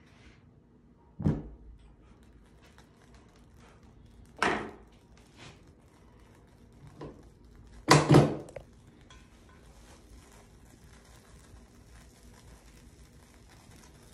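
A few separate knocks and clatters of objects being handled on a hard surface, spaced a few seconds apart. The loudest is a double knock about eight seconds in.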